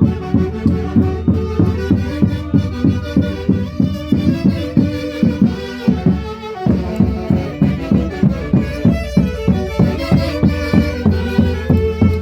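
Andean folk orchestra playing traditional festival music with wind instruments over a steady, quick, driving beat.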